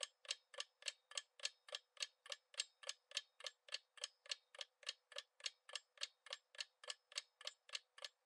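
Quiz countdown timer sound effect: faint, steady clock-like ticking, a little over three ticks a second.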